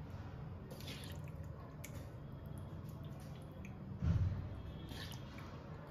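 Kitchen handling sounds: soft wet squishing and light clicks of saucy food being moved about, over a steady low hum, with one dull thump about four seconds in.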